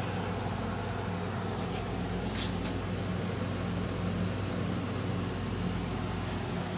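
Steady low machine hum, with two faint clicks about two seconds in.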